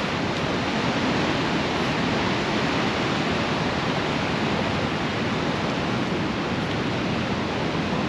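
Water of the Niagara River rushing over and above the American Falls: a steady, even rush with no breaks.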